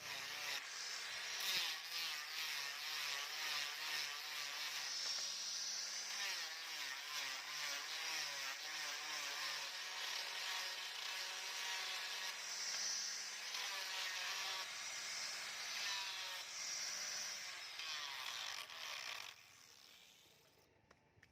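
A handheld electric power tool running steadily under load, switched on at the start and shut off about 19 seconds in.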